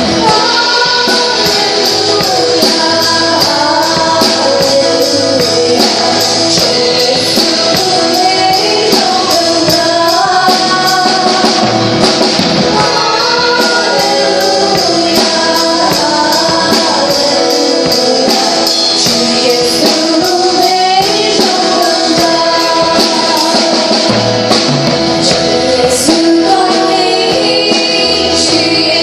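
Live worship band playing and singing a song, with voices carrying the melody over the instruments and a tambourine shaken on a steady beat.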